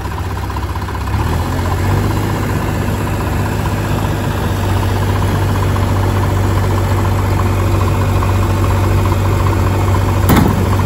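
Diesel engines of a Mahindra tractor and a JCB backhoe loader running steadily as they work a thresher out of deep mud. The engine note grows louder about a second and a half in. There is a short sharp knock near the end.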